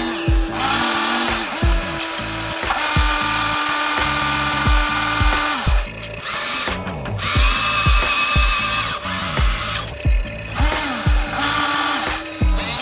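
Small electric motors of RC construction models whining, starting and stopping, over background music with a steady thumping beat.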